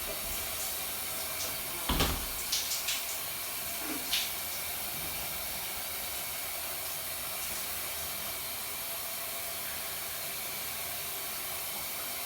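Shower running with a steady hiss of spraying water, broken by a few short knocks and clacks around two to four seconds in.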